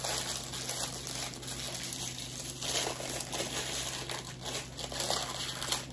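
Thin plastic packaging crinkling and tearing in irregular bursts as it is handled and pulled off a bottle of Japanese mayonnaise, with a louder crackle about two and a half seconds in.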